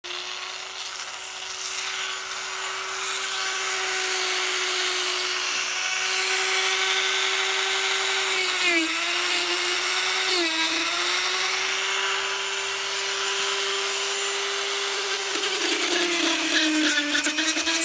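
Rotary tool spinning a sanding drum against the rubber of a snooker pocket cushion: a steady motor whine whose pitch dips briefly twice about halfway through as the drum bites into the rubber, and wavers more near the end.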